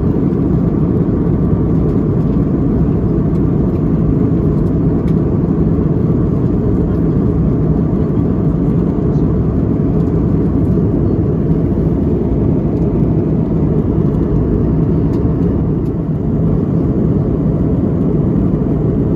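Airbus A321LR cabin noise in cruise: a steady low noise of airflow and engines, heard from inside the cabin by a window seat.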